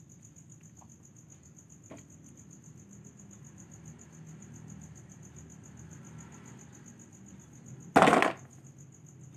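Faint, steady high-pitched insect trill (crickets) over a low background rumble. About eight seconds in, a short loud clatter as the plastic toy cow is dropped into the plastic basket.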